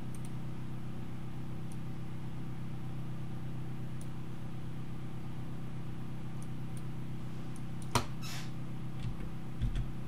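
Steady low hum of room tone with a few faint computer mouse clicks, then a sharper click and a short run of keyboard taps about eight seconds in, and two soft low thumps near the end.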